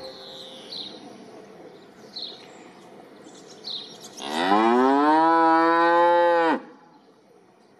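A cow mooing once, a call of about two seconds that rises in pitch, then holds and stops abruptly. A few short high chirps sound faintly before it.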